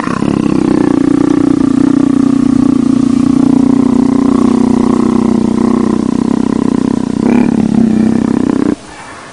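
Leopard making a loud, steady, rumbling growl-like purr while its head is rubbed, a sign that it is enjoying the petting. The rumble breaks off shortly before the end and starts again.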